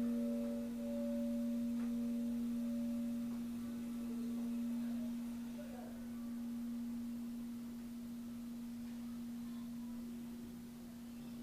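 Church bell's low hum note lingering after the last strike, one steady tone slowly dying away while its higher overtones fade out within the first few seconds.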